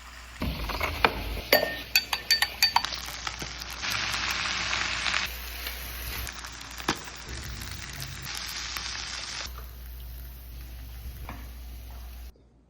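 Food sizzling in a hot frying pan, with a utensil clinking and scraping against the pan in the first few seconds. The sizzle comes in several short takes that change abruptly.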